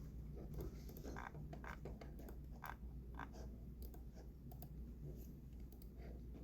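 Computer keyboard typing: irregular, quick key clicks as text is entered into a form field, over a steady low hum.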